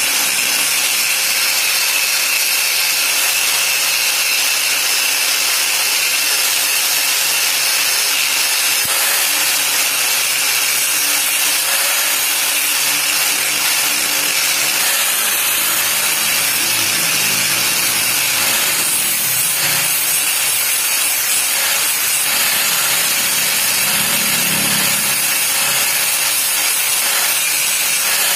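Electric angle grinder with a sanding disc running steadily against a steel knife blade, grinding and polishing it: a steady motor whine over a constant hiss.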